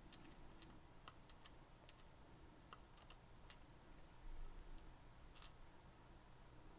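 Faint, irregular light clicks of small parts from a disassembled Medeco M3 lock being handled, with a soft low bump a little past the middle.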